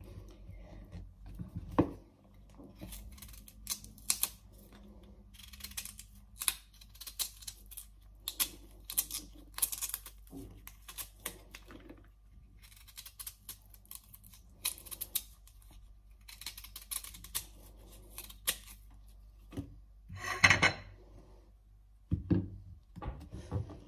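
A knife cutting and scraping the thick waxed skin off cassava roots: irregular scrapes and small clicks, with a louder clatter about twenty seconds in.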